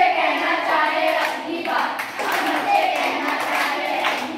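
A group of children singing together, with hand claps among the voices.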